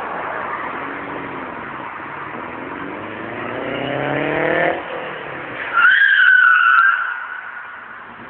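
Alfa Romeo boxer engine accelerating, its note rising steadily in pitch for about three seconds before it cuts off sharply. About a second later comes the loudest sound, a wavering high squeal lasting about a second, then it fades.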